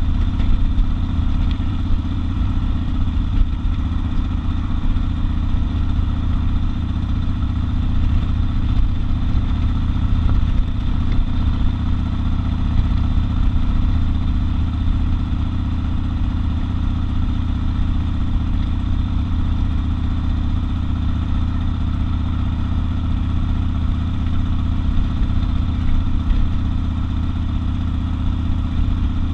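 Harley-Davidson XL 1200 Custom's air-cooled V-twin engine running at a steady cruising speed, with an even exhaust note and no shifting or revving.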